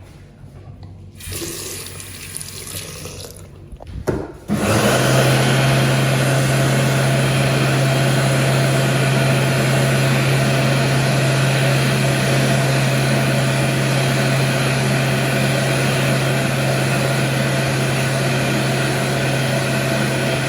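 Supreme BA101 electric hand dryer switching on about four and a half seconds in and then running steadily: a loud rush of air over a strong, steady low motor hum. The owner says it has an awful motor.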